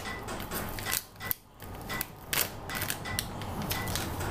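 Single-serve whey protein sachet torn open by hand: a string of short crinkling rips and crackles from the packet, with a sharp snap about a second in.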